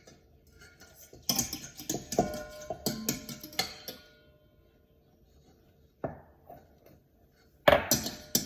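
A fork clinking and scraping against a mixing bowl as a toddler stirs pancake batter. It comes in quick, irregular bursts, pauses for a few seconds, then picks up again near the end.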